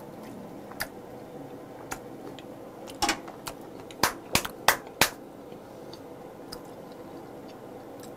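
A person clapping his hands: a short burst of sharp claps around the middle, the last four in quick succession about three a second.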